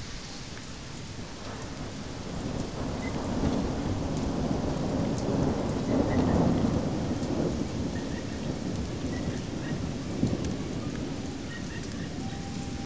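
Steady rain with a long roll of thunder that builds from about two seconds in, is loudest around the middle, and slowly dies away.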